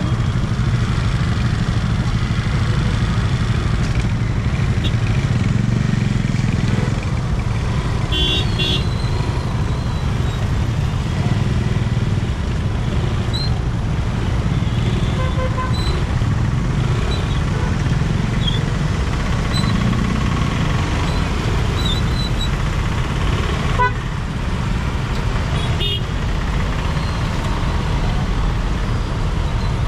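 Busy city road traffic: a steady rumble of engines and tyres, with short vehicle horn toots, the clearest about eight seconds in and several smaller ones later.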